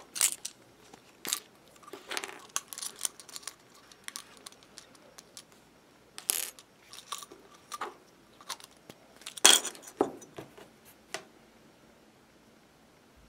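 Irregular small clicks, taps and rattles of objects being handled on a wooden table close to the microphone, loudest right at the start and about nine and a half seconds in.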